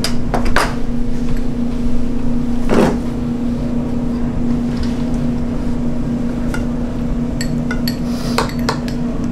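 Metal kitchenware and dishes clinking and knocking in a small restaurant kitchen: scattered sharp clinks, more of them near the end, with one longer scraping noise about three seconds in. A steady low hum runs underneath.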